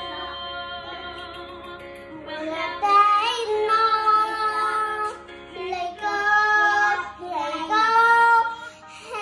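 Young girl singing loudly over a backing track. The first couple of seconds hold only sustained backing chords; from about three seconds in she sings long held notes in several phrases.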